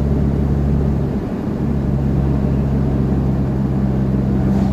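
A 4x4's engine and road noise heard inside the cabin while driving: a steady low drone that dips briefly a little over a second in, then carries on.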